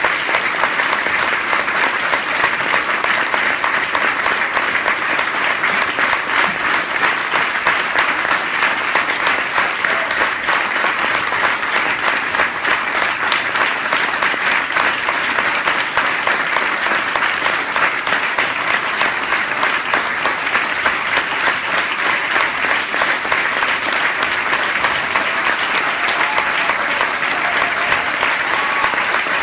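Audience applauding steadily: dense clapping from many hands that keeps going without a break.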